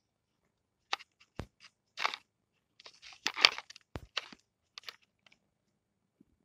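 Handling noise around a hard plastic toy tractor: scattered sharp clicks and knocks with short crunchy rustles in between, the loudest rustle about three and a half seconds in.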